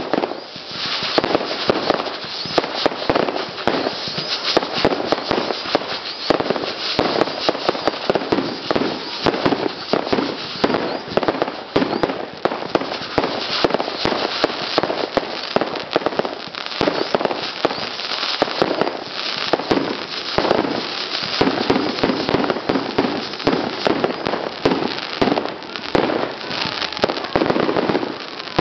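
Aerial fireworks going off in a dense, unbroken barrage of bangs and crackles, many a second.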